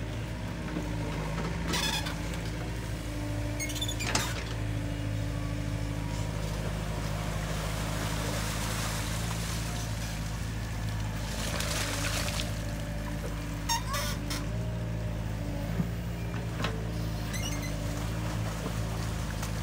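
Mini excavator's diesel engine running steadily under hydraulic load while the bucket digs in wet mud. Twice near the middle there is a rush of water and mud pouring, and a few sharp clanks come from the bucket and arm.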